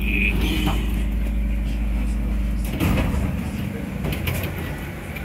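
SEPTA Broad Street Line subway car at a station stop: a steady electrical hum and a short high beep, then a little under three seconds in the doors slide open with a clatter and the low hum drops away.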